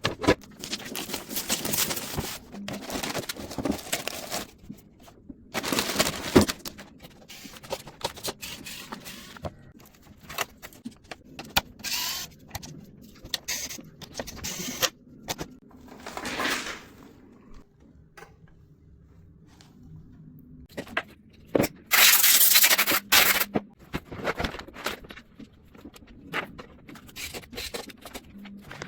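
Hands working on desktop computer parts: an irregular run of scrapes, clicks and rustles with short quiet gaps, and one louder rushing noise lasting over a second about two-thirds of the way through.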